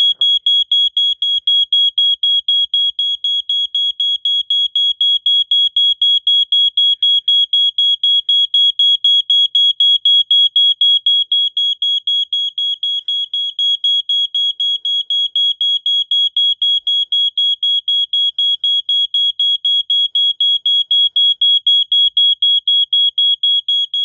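A 1987 Wake and Warn 2 smoke detector's alarm sounding a loud, high, fast-pulsing beep without a break. It was set off by canned test smoke and stays on for a while, showing the detector still works.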